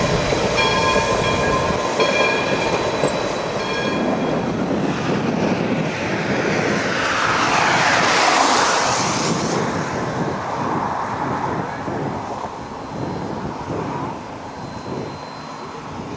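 Essex Terminal 9, a small 0-6-0 steam locomotive, passing close at low speed, with a high ringing tone that sounds in several short pieces over the first four seconds. After that, a broad rushing noise swells to its loudest about eight seconds in and dies away.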